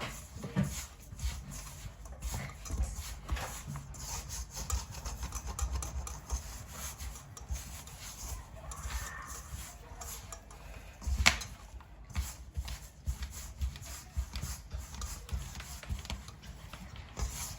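Bread dough being mixed and worked by hand in a bowl: a steady rubbing and scraping with small irregular knocks. There is one sharper knock about eleven seconds in.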